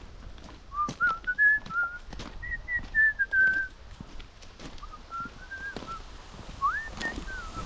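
A person whistling a wandering tune in four short phrases, over footsteps on the forest floor.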